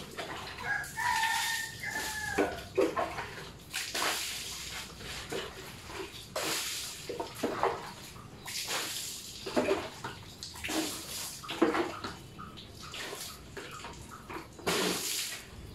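Water splashing in repeated separate throws or pours, one every second or two, as a scooter is washed by hand with a bucket and dipper. A brief animal call sounds about a second in.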